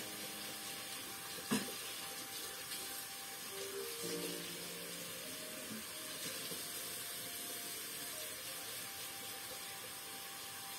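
Steady hiss, like water or steam, under faint soft background music, with a single sharp click about a second and a half in.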